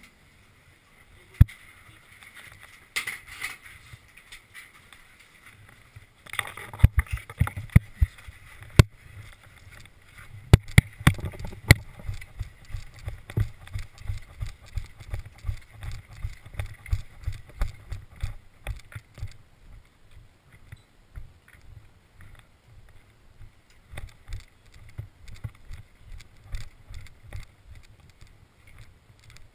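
A person's footsteps as low, rhythmic thuds, about two to three a second, through most of the second half. Several sharp cracks come in the first half, some in quick pairs.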